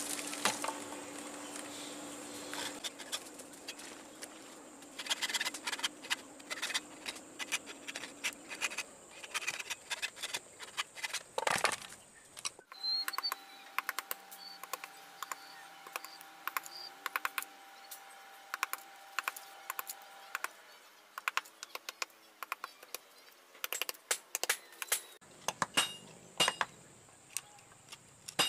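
Steel hand file scraping over a sonokeling (rosewood) machete handle in short, irregular strokes, with light metallic clicks and clinks.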